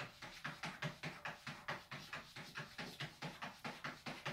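Cat's paws scrabbling rapidly against the smooth wall of an empty bathtub: a fast, regular run of short rubbing strokes, about four to five a second.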